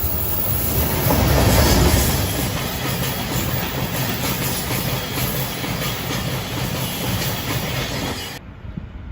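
Electric train running past close by, its wheels clattering over the rail joints; loudest about a second or two in, then steady, and cut off suddenly near the end.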